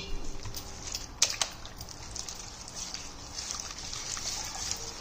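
Wire whisk beating thick flour-and-curd batter in a stainless steel bowl: steady wet sloshing and squelching, with a few sharp clinks of the whisk against the bowl in the first second and a half.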